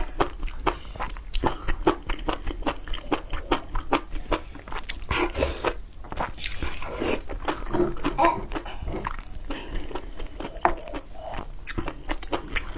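Close-miked eating: biting and chewing, with a dense run of short crunches.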